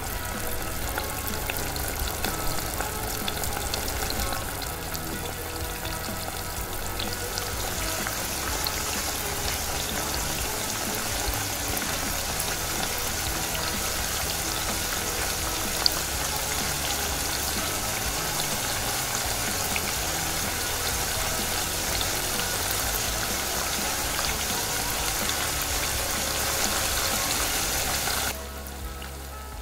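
Hot oil sizzling steadily as food deep-fries, stopping suddenly near the end.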